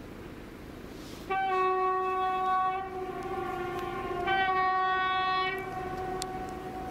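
Horn of an SM42 diesel shunting locomotive sounding two long blasts about three seconds apart, the lower notes carrying on between them and fading out near the end.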